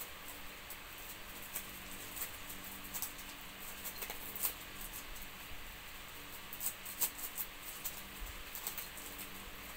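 Scattered faint, irregular light clicks and rustles over a steady hiss and a low hum, with a small cluster of clicks about halfway through and another near seven seconds.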